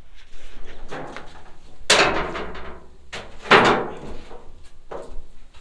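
A few light knocks and two louder bangs about a second and a half apart, each with a short ringing tail.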